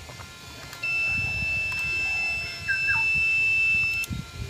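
Multimeter continuity beeper giving one steady high-pitched beep of about three seconds, starting about a second in and dipping briefly midway, as the probes bridge the two ends of a CRT yoke coil winding: the beep shows the winding has continuity.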